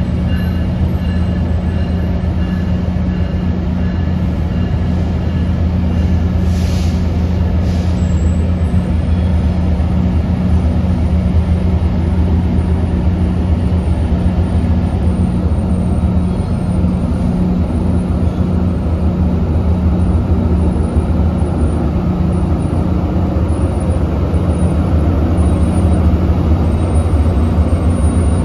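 Diesel passenger locomotive running steadily close by, a deep, even hum. A faint high whine fades out about eight seconds in.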